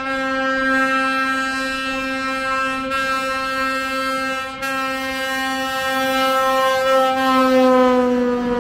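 Budd RDC rail diesel car's air horn sounding one long held blast. Its pitch sags slightly near the end, and there is a brief dip about four and a half seconds in.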